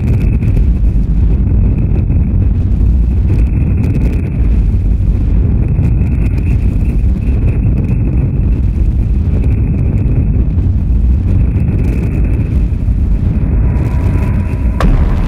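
Harsh-noise industrial music from an analog Eurorack modular synthesizer: a dense, steady low rumbling noise wall. Near the end a steady mid-pitched tone and a few sharp clicks come in over it.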